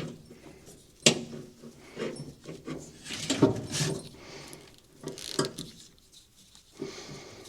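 Scattered clicks and knocks with rustling as a car's wiring harness and its wires are handled and pulled through.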